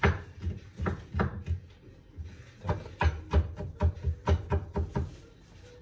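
Kitchen knife chopping garlic on a wooden cutting board: a quick, uneven run of knocks, a short pause about two seconds in, then a second run of knocks that stops shortly before the end.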